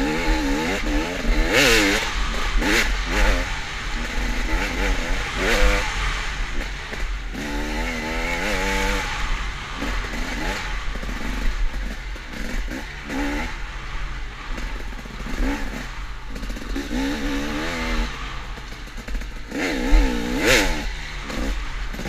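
KTM off-road motorcycle engine revving up and down over and over as the throttle is worked through tight woods, heard from on the bike, with knocks and clatter from the rough ground.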